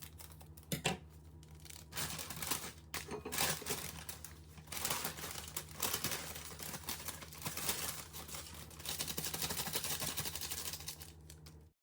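Plastic roasting bag crinkling and rustling in irregular bursts as chicken pieces and vegetables are shaken and worked around inside it to coat them in the seasoning, over a faint steady low hum.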